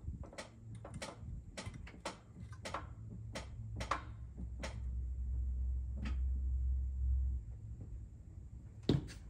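A string of sharp, irregular clicks and knocks over a low steady hum as the Toyota 4Runner's parking brake is applied, its ratchet clicking as it is set. A louder knock follows near the end.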